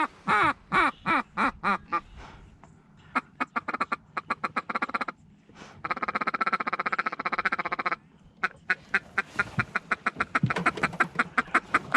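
Duck quacking: a run of about six loud, falling quacks, then quicker short notes, a fast, even chatter for about two seconds, and more short quacks at a steady pace.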